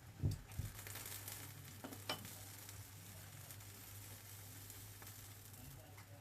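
Bánh xèo frying in a hot oiled pan: a couple of low knocks at the start, then sizzling that is strongest for the first two seconds and eases to a faint hiss.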